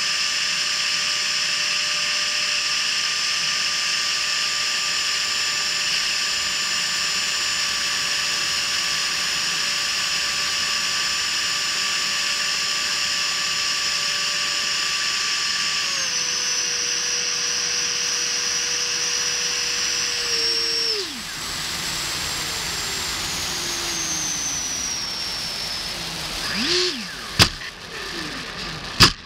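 The 70 mm electric ducted fan of a Freewing F-16 model jet, driven by an inrunner motor, heard from on board, gives a high, steady whine. About halfway through, the pitch drops as the throttle is eased back. About three-quarters through, the fan spools down to leave the rush of passing air with a slowly falling tone. Near the end, a couple of sharp knocks come as the jet touches down and rolls on the runway.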